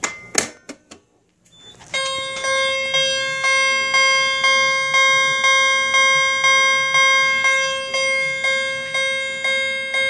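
A fire alarm pull station is pulled with a few sharp clicks. About two seconds later a Wheelock CH-70 fire alarm chime starts sounding in alarm: a bell-like tone struck about twice a second, each strike ringing on into the next.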